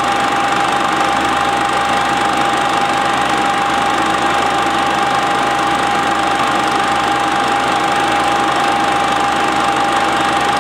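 A Standard 8 cine projector running, a steady mechanical noise with one constant high tone running through it.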